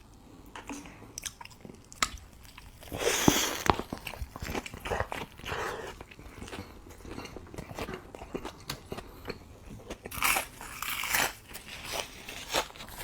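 Close-up eating sounds: two loud crunchy bites into a Chicken Shack crispy fried chicken sandwich, about three seconds in and about ten seconds in, with wet chewing and small crunches between.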